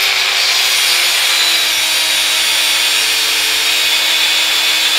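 Proxxon long-neck angle grinder's cutting disc grinding into a hard-steel coil spring, a steady high grinding hiss over the motor's hum, which sinks slightly in pitch as the disc bears into the steel.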